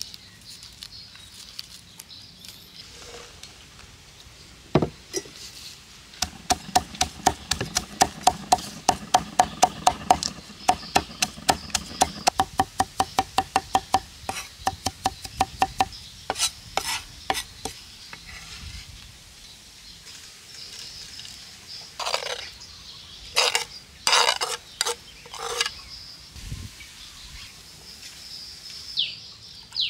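Cleaver chopping red chilies on a wooden chopping board: a fast, even run of knocks, about five a second, lasting some ten seconds, then slower, scattered knocks.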